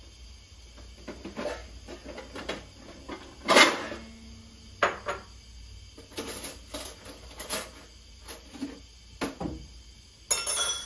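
Dishes and utensils being handled: a string of knocks and clinks, the loudest about three and a half seconds in, with a short noisy burst near the end.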